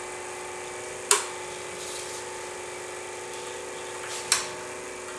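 Homemade transformer coil-winding machine running, its small DC motor and gear train giving a steady hum of several tones as copper wire is wound onto a transformer bobbin. A sharp click comes about a second in and another near the end.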